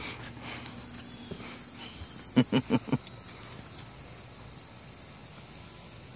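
Steady high-pitched insect drone, broken about two and a half seconds in by four short, loud sounds in quick succession.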